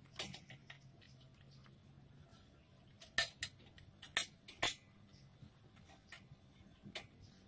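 Scattered sharp metallic clicks and knocks as the welded steel chainsaw-mill frame and rail are handled and adjusted, the chainsaw not running. The loudest knock comes about three seconds in, with two more a second and a second and a half later.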